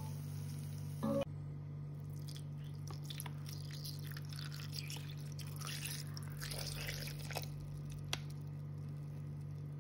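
Raw chicken and wet ingredients being added into a Thermomix mixing bowl: irregular wet squelches, drips and a few light knocks over a steady low hum. Background music is heard for about the first second.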